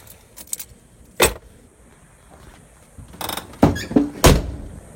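Handling knocks and clunks from an old truck with a dead battery: a sharp knock about a second in, then a cluster of three clunks near the end, in the manner of a door or latch.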